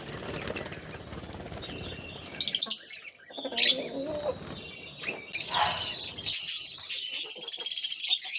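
Small pet birds chirping in quick, high-pitched runs, with wings fluttering. The chirping grows busiest in the second half, and a brief lower call comes about halfway.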